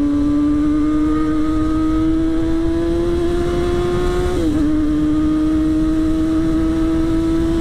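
Yamaha R6 sport motorcycle's inline-four engine running at high revs under steady acceleration, its pitch climbing slowly. About four and a half seconds in the pitch dips briefly at an upshift, then climbs again, with wind noise on the microphone.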